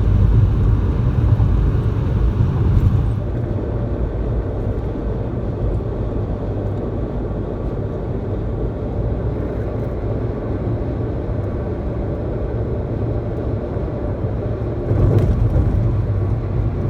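Toyota car driving at road speed: a steady low rumble of tyres and engine. It eases a little about three seconds in and rises again near the end.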